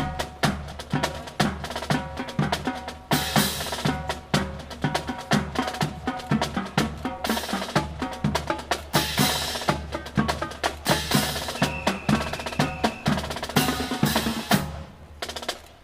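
A dense, irregular run of sharp clacks, slaps and knocks from drill rifles being handled in quick succession during an honor guard's fancy rifle drill, dying away near the end.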